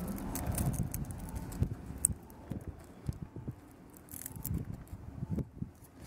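Fingers handling CAT5 wires and a plastic RJ45 keystone jack, pressing the wires into its slots: soft rustling and scattered light clicks, one sharper click about two seconds in.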